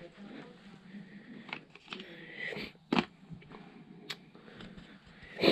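Faint handling noises in a quiet room: a few light clicks and knocks, with a short louder noise right at the end.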